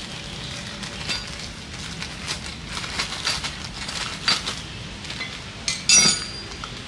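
Small metal hand tools and parts clinking and clattering against each other and the concrete as they are picked up and handled, in scattered light knocks with a louder clatter about six seconds in.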